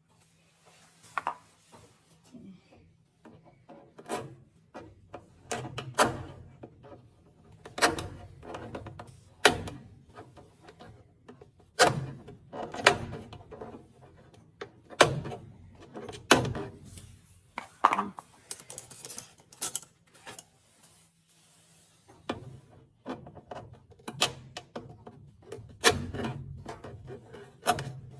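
Irregular knocks, clunks and rubbing of parts and tools being handled, with a faint steady low hum underneath.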